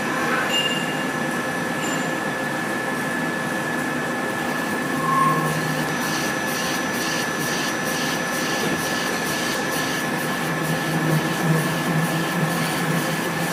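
Industrial machine running steadily, with a constant high whine over a mechanical rumble and a short louder tone about five seconds in.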